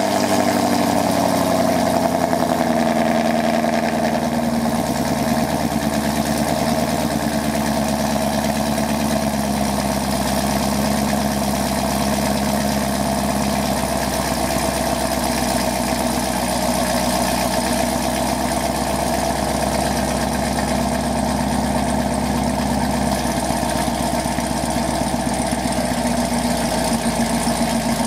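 2021 Chevrolet Camaro 1LE engine running at idle just after being started with the key fob, heard from behind at its quad exhaust tips. The idle is a little higher at first and eases down over the first few seconds, then holds steady.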